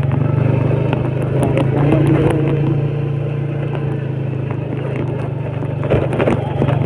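Old Yamaha Vega underbone motorcycle's single-cylinder four-stroke engine running steadily at low speed as the bike is ridden, with scattered clicks and rattles from riding over a rough track.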